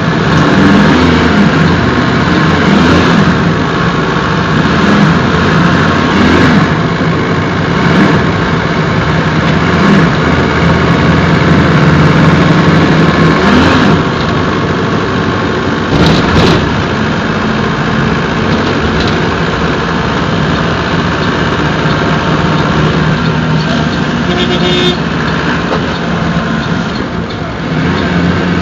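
Mercedes-Benz OF-1721 bus's OM-924LA four-cylinder turbodiesel running. Its engine note rises and falls several times in the first half, then settles to a steadier, slightly quieter run. There is a single sharp knock about sixteen seconds in.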